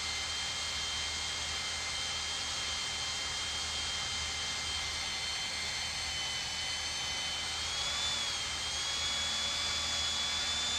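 Cordless drill with a cobalt bit boring through a steel trailer flange: a steady high whine under load, its pitch wavering briefly about eight seconds in.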